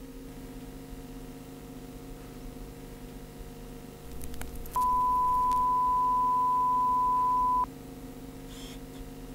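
A single steady electronic beep, one pure unchanging tone, starts abruptly about five seconds in, holds for about three seconds and cuts off sharply. It is the loudest sound here. Under it a constant low electronic hum runs on, with a few faint clicks just before the beep.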